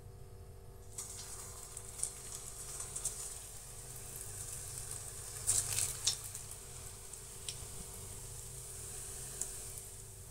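Pempek dough balls sizzling in hot oil in a wok as they are dropped in one by one, with scattered pops and crackles. The sizzle starts about a second in, and the loudest cluster of pops comes a little past the middle.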